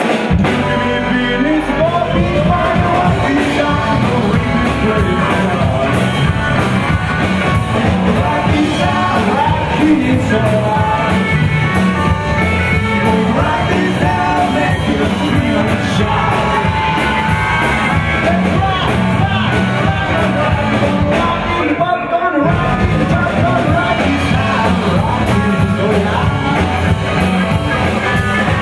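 Live rockabilly trio playing: electric guitar, upright double bass and drum kit, with a male lead vocal sung and shouted into the mic. The band stops briefly about three-quarters of the way through, then comes back in.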